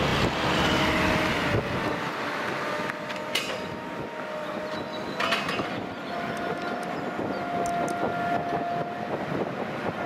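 Rail-yard gantry crane moving its rail-lifting beams: a steady electric whine from its drive, with two sharp metallic clanks. Underneath is a low rumble that drops away about two seconds in.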